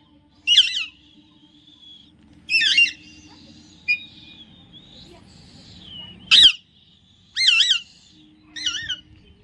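Alexandrine parakeet giving five loud, harsh squawks, each short with a wavering pitch, spread over several seconds with pauses between them.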